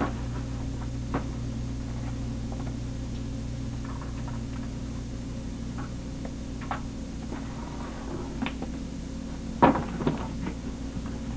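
Steady low electrical hum, with a few scattered light knocks and clicks and a short cluster of them about ten seconds in.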